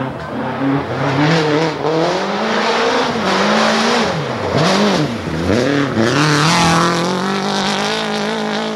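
Rally car engine revving hard on a gravel stage. The pitch rises and falls with gear changes, dips sharply several times in the middle as the throttle comes off, then climbs and holds high as the car passes.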